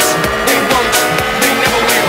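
Electronic dance music with a steady beat, playing without vocals.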